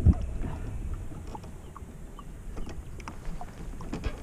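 A dull thump against the kayak at the start, then faint scattered ticks and light knocks from the kayak and its fishing gear, over a low rumble that slowly fades.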